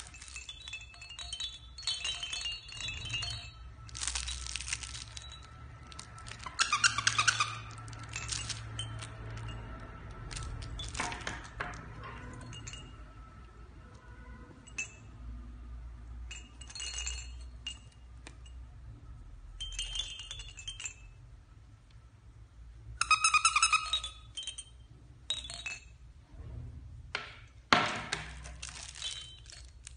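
Small wind chimes inside plush hanging baby toys tinkling in repeated short bursts as the toys are shaken by hand. A single bright ringing note lingers between shakes.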